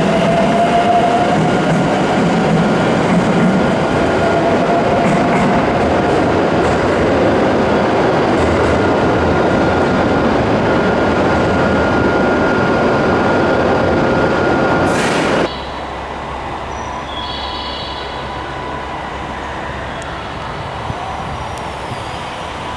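JR West 521-series electric train running through a station, loud rolling wheel-on-rail noise with a steady motor whine. About two-thirds through it cuts off abruptly to a much quieter steady low hum of a 521 standing at a platform, with a few brief high tones.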